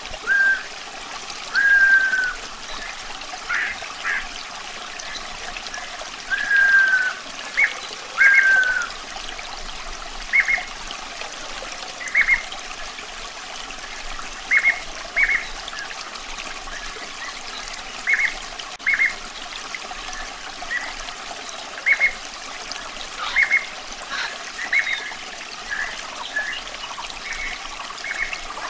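Steady running water trickling, with a bird calling over it: short whistled notes every second or so, and a few longer falling whistles in the first third.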